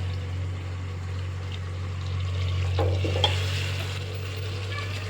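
Masala-coated chicken frying in a pan while a spoon stirs it, with a few scrapes and clicks against the pan about three seconds in. A steady low hum runs underneath.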